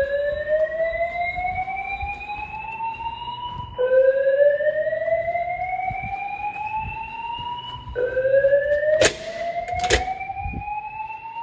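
Fire alarm voice evacuation speaker sounding a slow whoop tone between messages: three rising sweeps, each climbing for about four seconds before restarting low. Two sharp clicks come about a second apart near the end.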